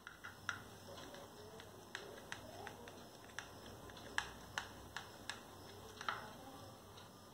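Knife cutting through soft barfi in a metal tray, the blade clicking sharply against the tray about a dozen times at irregular intervals.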